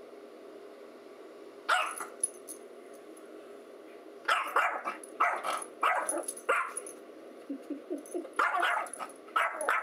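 Small Yorkshire terrier barking at her own reflection in a mirror: one sharp bark about two seconds in, then a quick run of barks from about four seconds, and a few more near the end.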